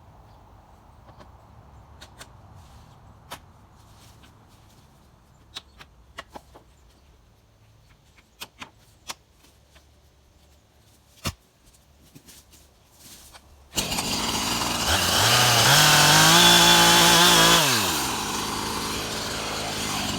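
A few scattered light knocks and clicks, then about two-thirds of the way in a chainsaw engine starts abruptly, revs up, holds at high speed for about two seconds, drops back and idles.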